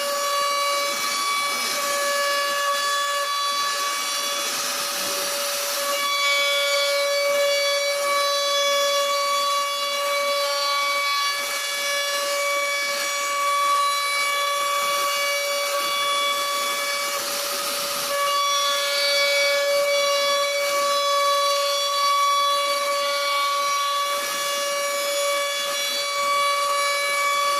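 CNC router spindle whining at one steady pitch with a hiss of wood being cut as its bit carves a 2.5D flower design, the cutting noise swelling a few times.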